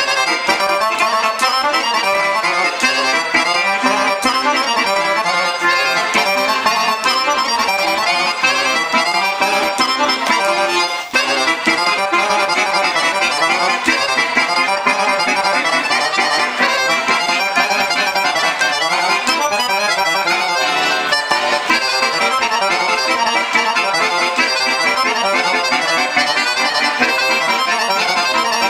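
Guerrini piano accordion playing a lively tune of quick notes on the treble keys, played as a sound test of the instrument after tuning and servicing.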